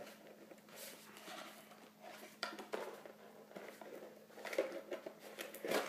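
Faint rustling and light taps of a small cardboard gift box being opened and its contents handled, with a slightly louder clatter near the end.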